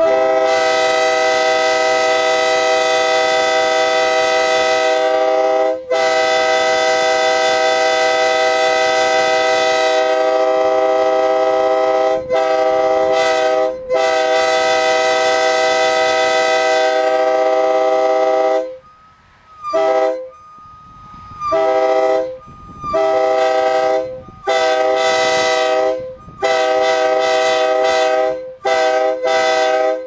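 Nathan AirChime K3LA three-chime locomotive air horn blowing its chord loudly. It sounds several long blasts with only brief breaks for the first eighteen seconds or so, then a rapid string of short toots to the end.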